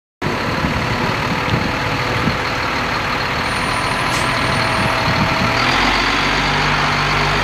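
Diesel engines of military cargo trucks idling, a steady heavy mechanical noise. A deeper engine hum grows stronger about six seconds in.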